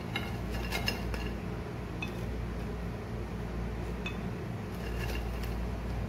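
Kitchen tongs clinking and tapping against a ceramic serving dish as French fries are laid in, with scattered light clinks that ring briefly: a cluster about a second in, single ones around two and four seconds, and a few more near the end. A steady low hum runs underneath.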